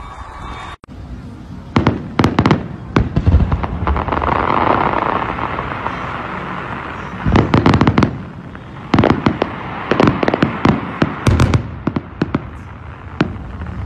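Fireworks display: aerial shells bursting in rapid clusters of sharp bangs, with a dense crackling hiss between the clusters. The sound drops out briefly about a second in.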